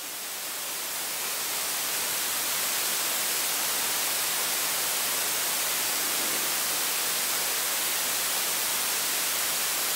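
Steady electronic hiss like static, swelling over the first couple of seconds and then holding level.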